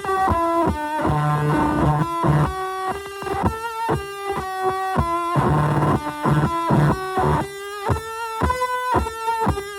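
Electric guitar played through a fuzz pedal based on the Devi Ever Hyperion, giving a distorted tone in a riff of short, clipped notes at changing pitches.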